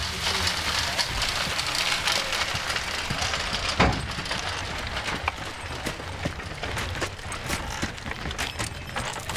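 Horse-driven oil mill in operation, heard from outside: a steady low rumble with scattered clicks and knocks from the mill and the draft horses at work, and one louder knock about four seconds in.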